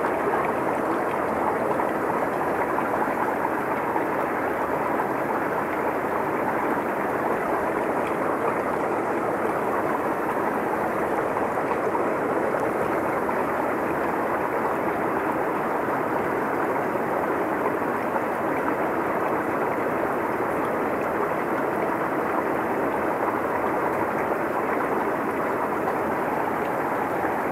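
Steady rush of running water, an even noise with no breaks or changes.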